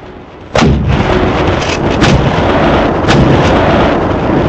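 Artillery barrage: a sudden loud blast about half a second in, followed by a continuous rumble of explosions with several sharper blasts standing out.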